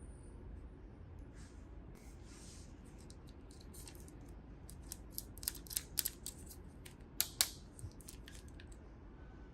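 Small handling noises from opening toy packaging: a run of sharp clicks and snips, loudest and closest together between about five and seven and a half seconds in.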